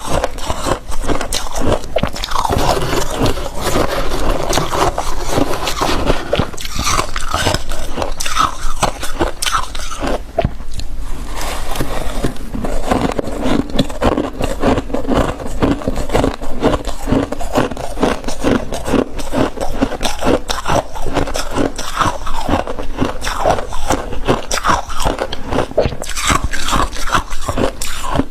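Thick, fluffy freezer frost crunching and scraping in a rapid, continuous run of crisp crunches, with a short lull about ten seconds in.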